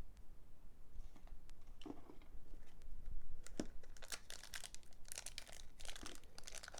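A few light taps of cards being handled, then, from about three and a half seconds in, the foil wrapper of a Pokémon booster pack crinkling and crackling in the hands.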